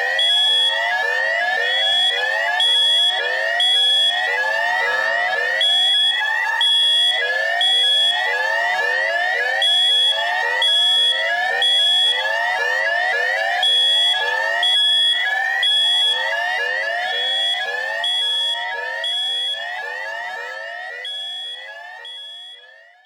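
Electronic alarm-clock sound, loud and harsh: fast rising whoops repeat several times a second, with short high beeps in groups of two and three over the top. It fades out over the last several seconds.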